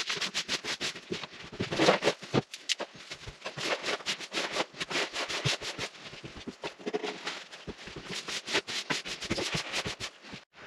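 Rapid, irregular clatter of knocks and clicks, several a second, from tools and scrap material being handled and moved during a cleanup.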